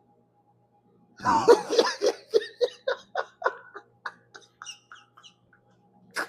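A person laughing: a loud burst about a second in, then rapid ha-ha pulses, about four a second, that fade out over some four seconds. A sharp click near the end.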